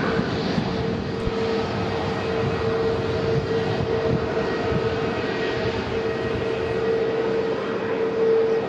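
Jet airliner engines running: a steady rush of noise with one held mid-pitched drone through it.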